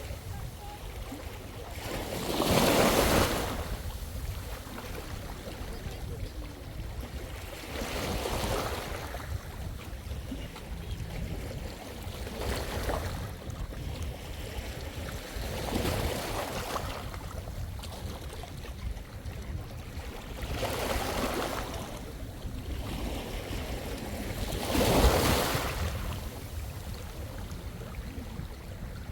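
Small sea waves breaking and washing up the shore, about six surges that each swell and fade over a second or two, the loudest about three seconds in and near the end.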